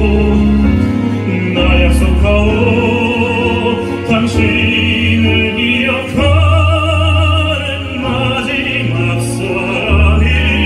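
A male singer singing live into a handheld microphone over instrumental accompaniment, with vibrato on long held notes and steady bass notes changing beneath.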